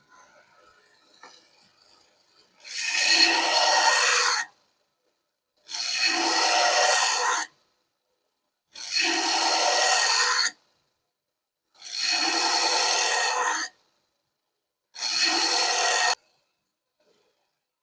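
Five long, even rasping strokes of abrasive work on the steel knife blade's edges, each about one and a half seconds long with short pauses between.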